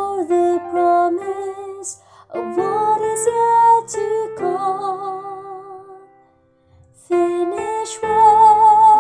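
A woman's soprano voice singing a slow melody with vibrato over piano accompaniment. The music breaks off briefly about two-thirds of the way through, then comes back in on a long held note with vibrato.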